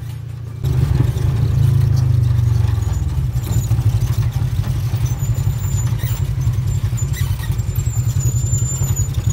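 Polaris RZR 1000 side-by-side buggy engines running as the buggies drive the dirt trail: a deep, rapidly pulsing rumble that cuts in about half a second in.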